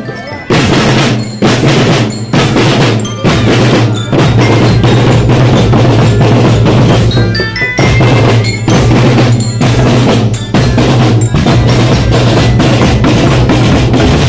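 A school marching drum band playing loudly and close up: red marching drums beat a fast, steady rhythm, and a marching glockenspiel (bell lyra) plays short, high ringing notes over them.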